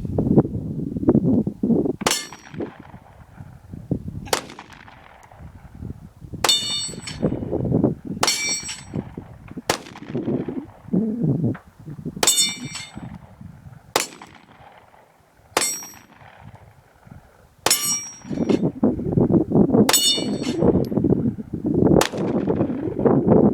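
Glock 19 9mm pistol fired at a slow, steady pace, about a dozen shots roughly two seconds apart. Most shots are followed by the ringing clang of a steel dueling tree paddle being hit.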